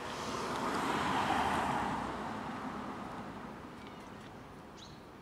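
A car passing along the street: its road noise swells to a peak about a second in, then fades away over the next two seconds.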